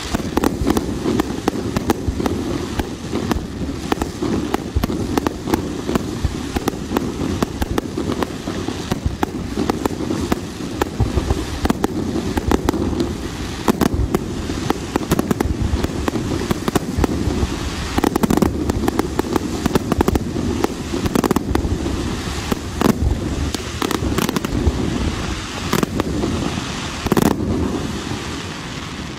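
Fireworks display: a dense, unbroken run of aerial shell bursts and crackling bangs, one report after another with no pause.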